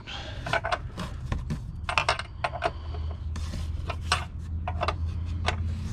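Small metal clicks and clinks, irregular and sharp, as a bolt and its hardware are worked by hand against the metal bracket of a Kuat Sherpa 2.0 hitch bike rack during assembly. A steady low hum sits underneath from about halfway through.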